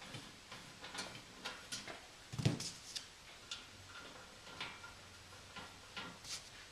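Small metal clicks and taps, irregular and about once a second, as an Allen head bolt is fitted and turned into a PEM nut on a steel barrier grid; one heavier metal clunk about two and a half seconds in.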